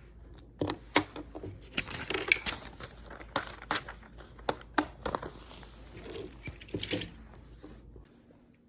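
Small objects being handled: a quick irregular run of clicks and taps with rustling, stopping suddenly near the end.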